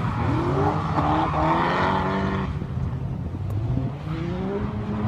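Drift car's engine revving up and down as it slides through a corner, with tyre squeal that stops about halfway through; the engine climbs again near the end.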